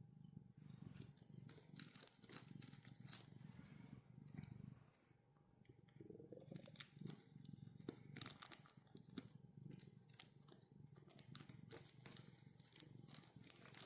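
A kitten eating: faint, irregular crunching and clicking chewing sounds over a steady low purr.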